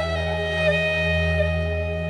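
Background music: a flute holding one long note over a steady low drone.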